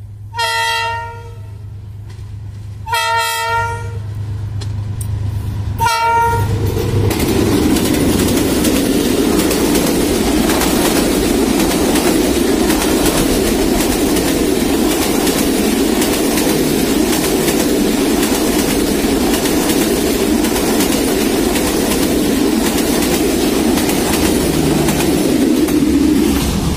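Diesel locomotive's horn sounding three times: two blasts about a second long, then a short toot near six seconds. The passenger train then passes close by, with a steady rumble and wheel clatter on the rails.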